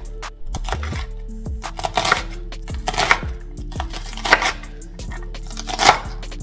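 A large kitchen knife chopping an onion on a wooden cutting board: sharp blade strikes against the wood at an uneven pace, about one a second. Steady background music plays underneath.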